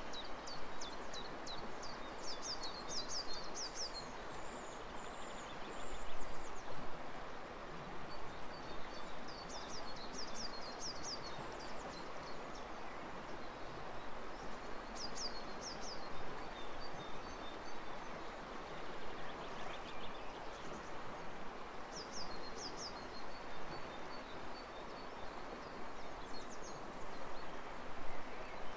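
Outdoor ambience: a songbird sings short phrases of quick, high, downward-sweeping notes every several seconds over a steady background hiss.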